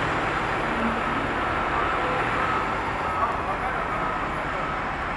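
The diesel engine of a Spartan Gladiator / Rosenbauer aerial ladder fire truck running with a steady low rumble as the truck creeps past and turns. The sound slowly fades a little.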